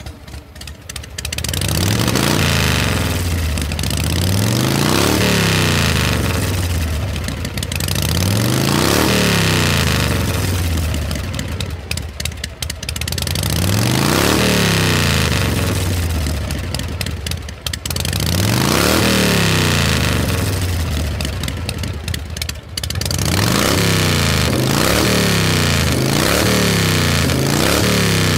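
A motor or engine-like sound running loudly, its pitch rising and falling again and again like repeated revving, in surges of a few seconds with short dips between them and a quicker wobble near the end.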